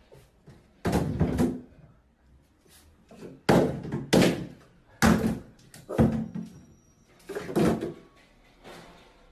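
Plastic toiletry bottles knocked off a bathtub rim by a small dog, clattering and thudding into the tub about six times in a row.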